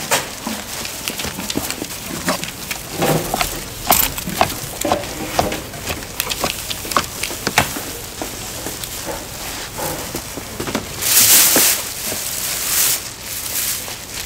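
Clatter of food preparation at a gimbap counter: irregular small knocks and clicks throughout, with a brief loud rustling burst about eleven seconds in.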